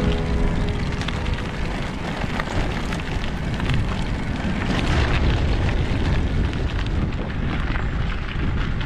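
Simplon Chenoa e-bike rolling along a gravel track, its tyres crunching and clicking over the stones, under a steady rush of wind noise on the action-camera microphone.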